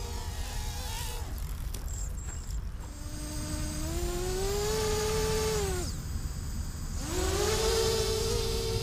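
Small quadcopter's electric motors whining. The whine drops away about a second and a half in, rises in pitch again around four seconds, falls and cuts off near six seconds, then spins back up a second later.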